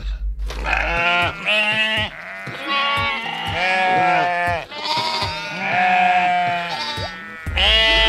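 Sheep bleating over and over in quavering calls, about six in a row, over background music.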